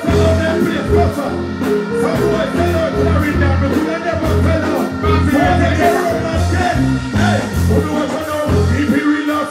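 Live dancehall performance: a male artist singing into a microphone over a riddim with a heavy, steady bass beat, played through a large outdoor sound system.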